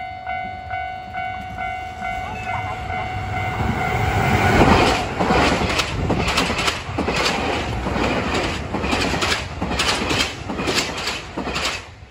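Level-crossing warning bell ringing with a steady repeating tone, then a Nankai electric commuter train arriving about four seconds in and passing close by, its wheels clacking over and over across the rail joints. The train noise falls away near the end.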